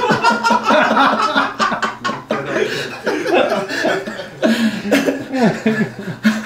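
Men laughing and chattering over one another.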